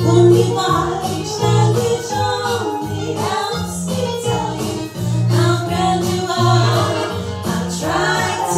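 Two women singing a vintage-style duet into microphones over an accompaniment with a bass line.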